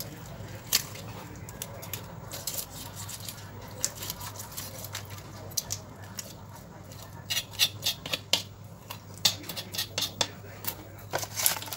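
A knife cutting into a small tilapia on a wooden chopping block: irregular crunching clicks and scrapes of the blade through scales and bone, coming thicker in the second half. A steady low hum runs underneath.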